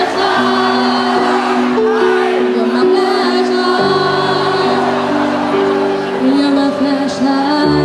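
Music: a large group singing together over held chords that change every second or two.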